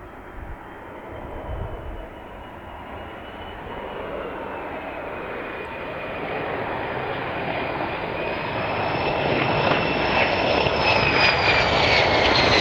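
Jet aircraft growing steadily louder as it approaches, a high engine whine over its rumble, the whine falling in pitch near the end as it passes.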